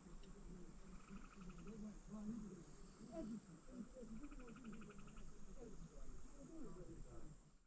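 Faint insect trilling: two short runs of rapid, evenly spaced chirps, about a second in and again around four seconds in.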